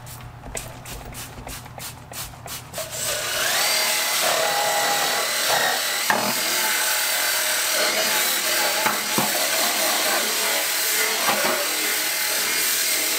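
A trigger spray bottle clicking in quick squirts, then about three seconds in a cordless drill spins up and runs with a scrub-brush attachment scrubbing metal, its whine wavering as the load changes.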